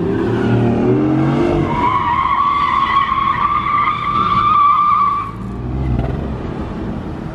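Sports car engine revving, then its tyres squealing in one long steady screech for about three and a half seconds that cuts off suddenly, leaving the engine's lower rumble.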